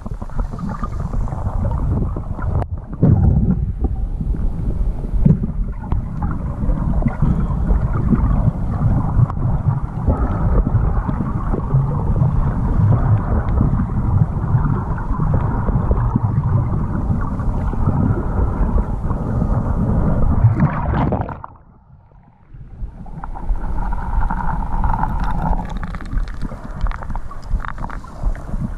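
Muffled underwater water noise from a snorkeler swimming, heard with the microphone submerged in the lake: a steady low rumbling swish. It drops much quieter for about a second about three quarters of the way through, then picks up again.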